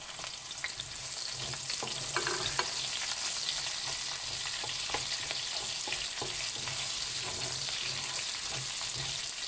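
Sliced onion sizzling in hot oil in a wok as it is stir-fried, with scattered clicks and scrapes of a slotted spatula against the pan.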